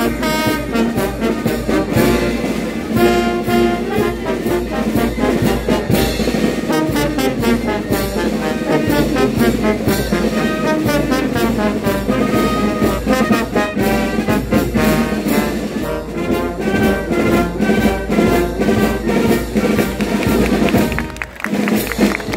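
A brass band playing, with trumpets and trombones over a steady beat. The music dips briefly near the end.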